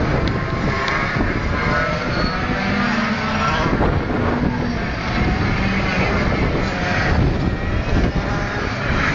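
125cc six-speed shifter karts' two-stroke engines running around the circuit, their whine rising and falling as the karts accelerate and brake. Wind rumbles on the microphone.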